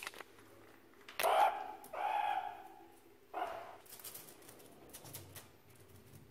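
Meerkat giving three short, loud calls within about two and a half seconds while feeding on anchovies, followed by a run of soft clicks.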